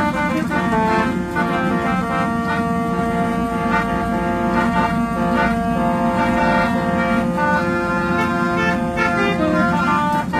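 Old-style musical horn playing a tune: a string of brassy held notes changing pitch, over a steady low hum.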